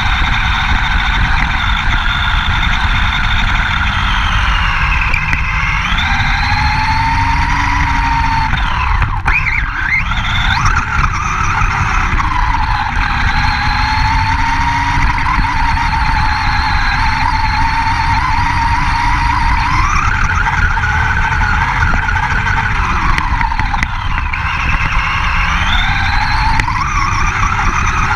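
Redcat 1/10-scale RC monster truck running fast, heard from a camera mounted on it: a high motor whine that rises and falls several times with the throttle, over a steady low rumble.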